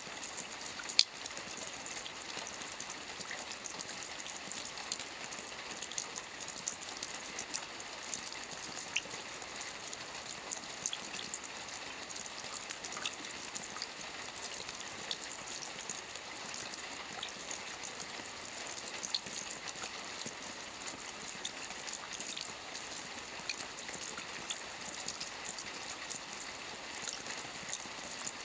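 Steady rain with many separate drops tapping close by, one sharper drop hit about a second in.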